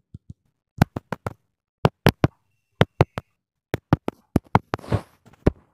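Sharp clicks in small irregular groups, about eighteen in all, with a short crackling burst about five seconds in. This is a homemade matchbox pencil-lead microphone being disturbed, its loose carbon contacts heard through the small speaker it is wired to.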